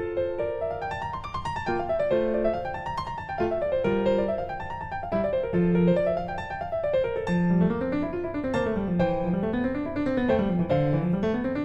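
Background piano music playing flowing runs of notes that rise and fall over and over, with a low line of notes moving up and down beneath them in the second half.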